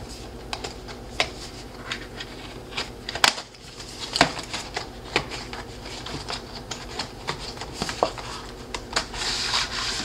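A small cardboard box being handled: its paper sleeve slid off, with scattered taps and rubbing of card on card and on the tabletop. There is a sharper knock about three seconds in and a longer rustle near the end.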